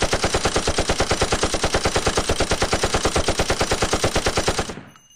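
Rapid burst of machine-gun-like fire, about a dozen shots a second, held steady for several seconds and fading out near the end.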